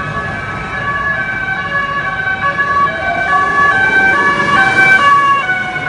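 Emergency-vehicle sirens, several at once, each stepping back and forth between two tones at different pitches so that they overlap. They grow louder about a second in, over the low rumble of vehicles.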